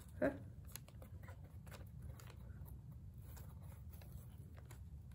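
Faint, scattered scratches and clicks of a hamster's claws on cardboard and tissue paper as it climbs about inside a box, with one brief louder sound just after the start.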